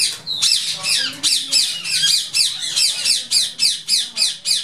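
Indian ringneck parakeets squawking in an aviary: a rapid run of harsh, high calls, each one sweeping downward, about three or four a second.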